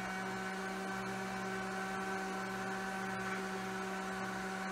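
Steady electrical hum of a small motor or appliance running, one unchanging pitch with higher overtones.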